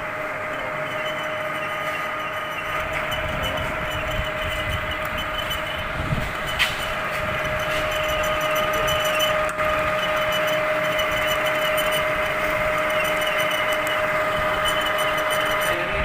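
Metal lathe running steadily, a constant motor and gearing whine over mechanical noise, with one sharp click about six and a half seconds in.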